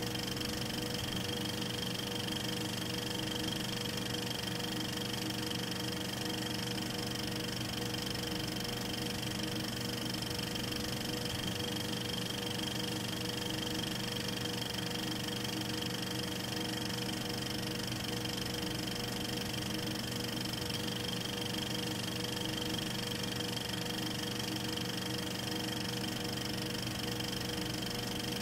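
8mm film projector running: a steady mechanical whir with a thin, constant high whine, unchanging throughout.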